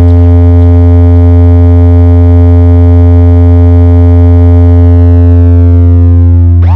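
Loud, steady deep synthesizer bass tone with a buzzy stack of overtones, played as a speaker-check bass test. Near the end its upper overtones fade away, as if a filter is closing, and swooping up-and-down pitch sweeps begin.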